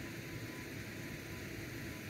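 Steady hiss with a faint low hum and a thin high tone, with no distinct event.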